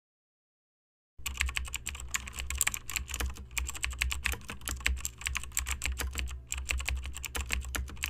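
Computer keyboard typing: rapid key clicks in quick succession, starting about a second in and stopping near the end, over a low steady hum.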